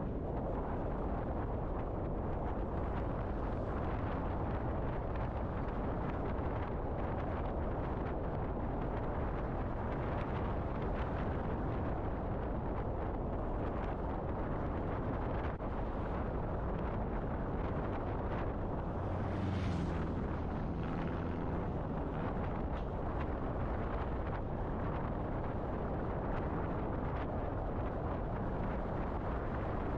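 Steady low rumble of a car driving, road and engine noise, with a brief louder hum and hiss about two-thirds of the way through.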